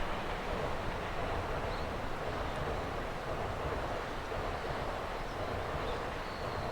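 Freight train rolling past on the rails, a steady rushing noise of wheels and wagons without distinct clicks.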